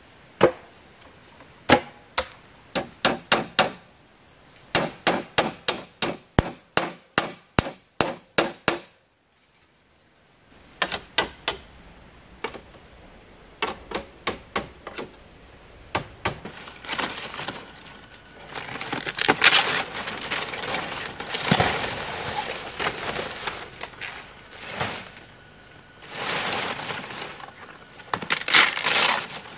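Repeated sharp chopping strikes on wood, coming quickly at about two to three a second, then breaking off briefly. Scattered single strikes follow, and toward the end the chopping mixes with rustling handling noise.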